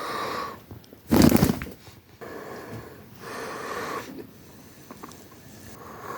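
Pet parrot making a series of hoarse, hissy vocal noises in short bursts, with one louder harsh burst about a second in.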